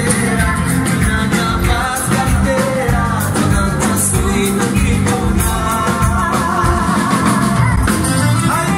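Live band playing a Greek-style dance tune: a singer over a steady drum beat and backing instruments.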